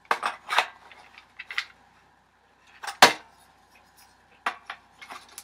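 Scattered clicks and knocks of parts on a spring airsoft MP40 being handled and tried in place, with the loudest knock a little past halfway.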